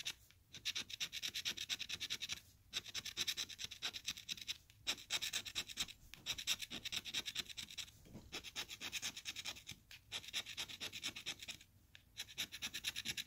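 A pen tip scraping the latex coating off a paper scratch-off lottery ticket in quick back-and-forth strokes. The strokes come in runs of a second or three with short pauses between, as one spot is finished and the next begun.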